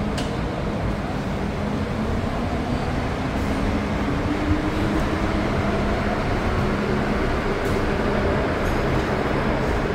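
Interior sound of a Hong Kong MTR Metro-Cammell DC-traction electric train running through a tunnel: a steady rumble of wheels on rail with a low motor hum that creeps slightly upward in pitch in the first half as the train gathers speed.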